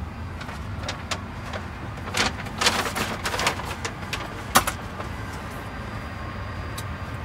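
Steady low hum of an Airbus A330-300's cabin at the gate, with a run of clicks and knocks about one to five seconds in, the sharpest one near the middle.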